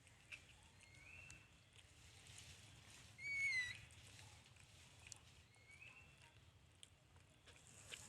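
Newborn monkey crying with thin, high-pitched calls: a few faint rising squeaks, and one louder, longer cry a little past three seconds in.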